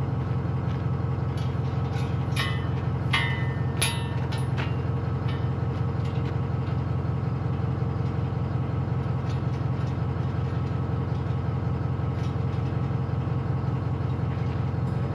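Steady low engine rumble, as of a vehicle running, with a few sharp clicks in the first few seconds.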